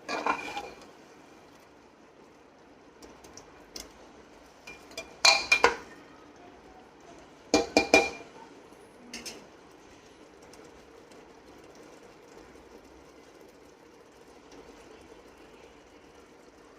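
A metal spoon clinking and scraping against a cooking pot while stirring a frying masala gravy, in short clusters of three or so quick taps: at the start, about five seconds in and about eight seconds in, with a faint steady background between them.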